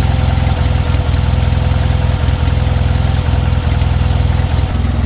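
A small engine running steadily at idle, with an even low pulsing throb.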